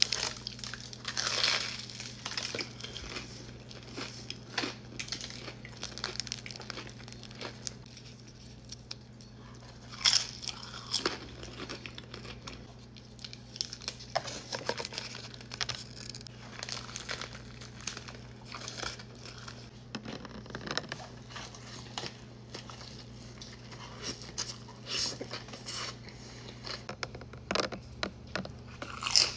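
Crunchy food being bitten and chewed, with irregular crisp crunches and sharp bites, the loudest about ten seconds in and again near the end. A steady low hum runs underneath.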